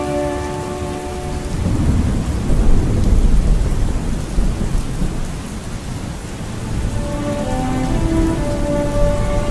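Steady rain falling, with a long rolling rumble of thunder that builds about a second and a half in, is loudest around three seconds and dies away by about six seconds. Soft music tones fade out at the start and return near the end.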